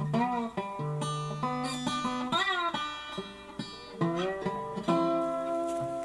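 Background music: an acoustic guitar playing, with some notes bending or sliding in pitch.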